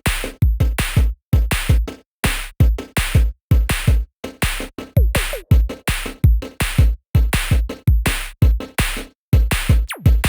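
Background electronic music: a choppy drum-machine beat with deep kick drums and sharp hits, stopping and starting in short, rhythmic bursts.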